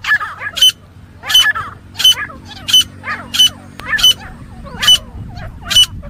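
Grey francolin (teetar) giving its loud fighting call over and over: about nine sharp, ringing high notes, roughly one every two-thirds of a second, each followed by lower chattering notes.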